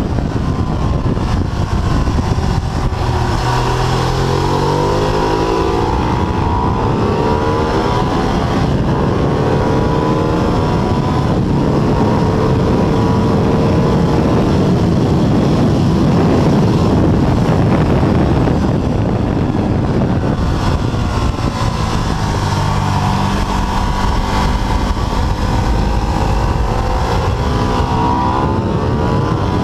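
Ducati 848's 849 cc L-twin engine at full track pace, heard from a camera on the bike: the revs drop sharply a few times under braking and climb again through the gears, with a long steady high-rev stretch in the middle, all under heavy wind rush.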